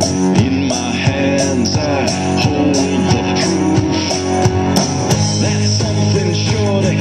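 Rock music with electric guitar and a drum kit playing steadily, with bending guitar notes over a regular drum beat.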